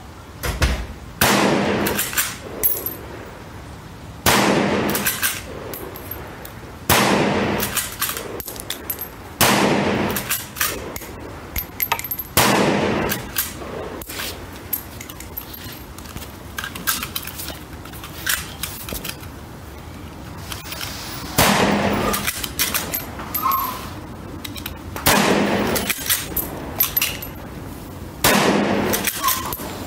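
Eight rifle shots from a CZ 527 bolt-action carbine in 7.62x39mm, each echoing under the range's roof: five about three seconds apart, a pause of some nine seconds, then three more. Lighter metallic clicks fall between the shots.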